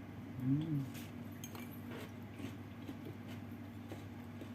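Faint light clicks and clinks of eating from a salad bowl, with a short hummed 'mm' about half a second in, over a steady low hum.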